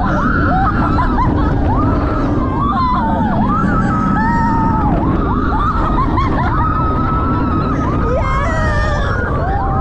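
Roller coaster riders screaming and yelling, long held and gliding cries, over a loud steady rush of wind and rumble from the moving train.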